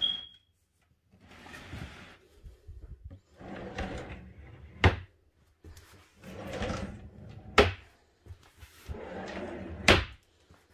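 Pull-out wooden bed frame of an IKEA Hemnes daybed being slid along its runners: several scraping slides, three of them ending in a sharp knock as it meets its stop.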